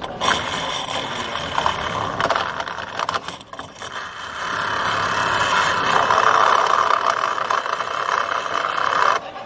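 Tornado lateral reinstatement cutter spinning on its flexible shaft inside a lined pipe, grinding through the liner to reopen a lateral. The grinding grows louder about halfway through and stops abruptly just before the end.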